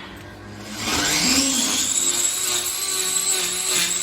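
A small high-speed motor starts up about a second in and runs steadily with a high-pitched whine, like a power tool.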